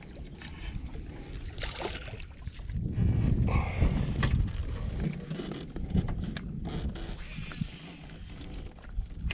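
Water sloshing against a small boat, with wind on the microphone; the low rumble swells about three seconds in. Scattered light clicks and knocks.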